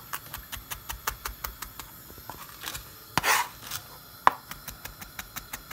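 Chef's knife rapidly mincing garlic on a cutting board: a quick, even run of blade taps, about six a second. About three seconds in comes a brief scrape, then one sharper knock.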